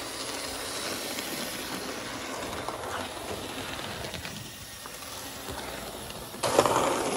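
Vintage 1950s Varney model steam locomotive with a seven-pole motor running along layout track: a steady mechanical running noise of motor and wheels on the rails, louder near the end.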